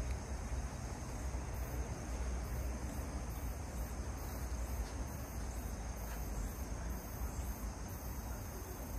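Summer insects chirring: a steady high buzz with short, high-pitched pulses repeating a few times a second, over a steady low rumble.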